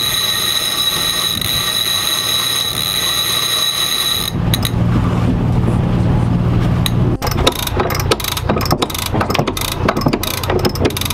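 A line being hauled in on a sailboat, first with a steady high whirring, then a Harken sheet winch clicking rapidly from about seven seconds in as the line is pulled around its drum.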